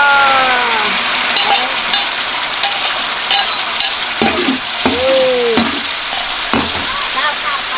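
Minced garlic and chili sauce sizzling in hot fat in a large aluminium pan, with a metal ladle stirring and clicking against the pan. Brief voice-like calls come at the start and about five seconds in.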